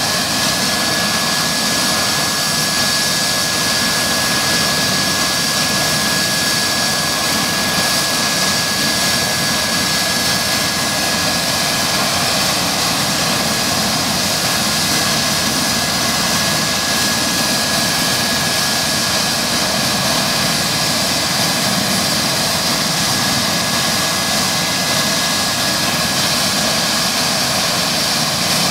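Eurocopter EC135-P2 helicopter running steadily, its twin Pratt & Whitney PW206B2 turboshaft engines giving a constant rushing noise with a steady high-pitched turbine whine on top.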